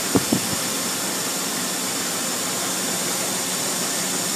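Steady rushing noise with no pitch, like air moving through shop ventilation, with two or three brief low knocks near the start.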